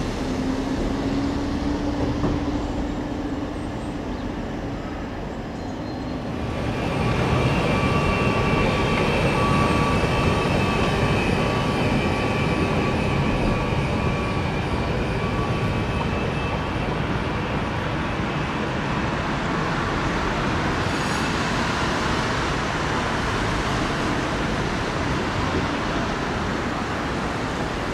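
Electric city trams running on street track amid road traffic: a steady rumble of passing vehicles, with a low rising tone in the first few seconds. The sound gets louder about six seconds in, with thin high steady whines through the middle.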